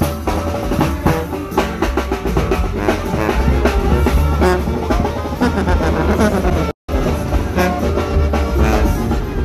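Tamborazo band playing: a tuba bass line under saxophone and brass melody, driven by a bass drum (tambora) with clash cymbals and snare. The sound cuts out for an instant about two-thirds of the way through.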